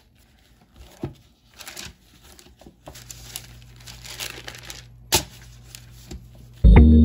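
Disposable plastic gloves and parchment paper crinkling and rustling as gloved hands stretch and press dough over a sheet pan, with two sharp taps about a second in and about five seconds in. Loud background music starts suddenly near the end.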